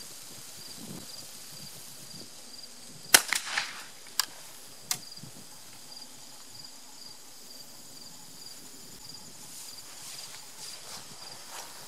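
Fabarm L4S 12-gauge gas-operated semi-automatic shotgun fired once about three seconds in, the blast echoing briefly. Two sharp clicks follow, about one and one and a half seconds after the shot. Insects chirp faintly throughout.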